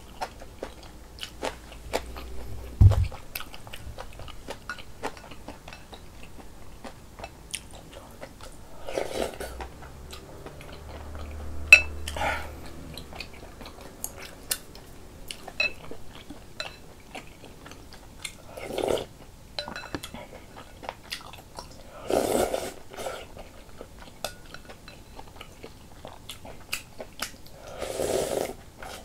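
A person eating close to the microphone: chewing and biting, with many small wet mouth clicks and a few louder mouthfuls every several seconds. There is a dull thump about three seconds in and a sharp click near the middle.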